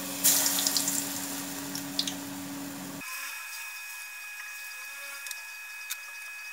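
Batter-coated baby corn pakoras going into hot oil in a kadhai: a loud burst of sizzling as the pieces hit the oil, settling into the steady bubbling hiss of deep-frying.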